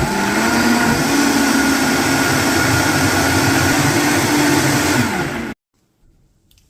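Vitamix blender motor running steadily with a held whine, blending a liquid mixture of chopped whole lemons, eggs, honey and coconut oil until smooth. It cuts off abruptly about five and a half seconds in.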